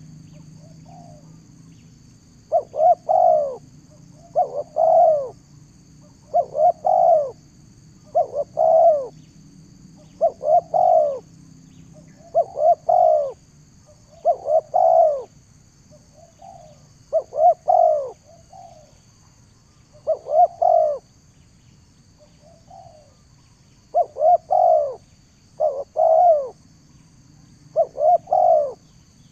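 Doves cooing: short phrases of two or three rounded coos, repeated about every two seconds.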